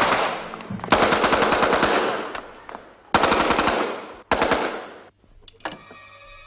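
Wartime gunfire and explosions: four loud blasts a second or two apart, each fading away with a rattle, the last about four seconds in.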